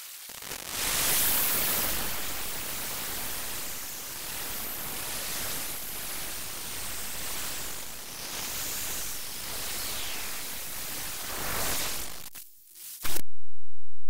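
Loud, steady hiss of static on the audio feed, with no singing or speech heard through it. Near the end it cuts off abruptly, and a brief steady low hum follows.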